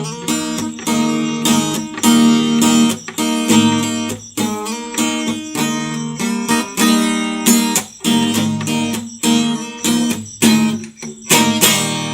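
Acoustic guitar strummed in a steady rhythm, playing the instrumental close of a song; a last chord near the end is left ringing.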